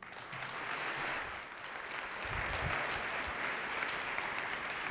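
Audience applauding: a dense patter of many hands clapping that breaks out at once and keeps going, with a few low thuds near the middle.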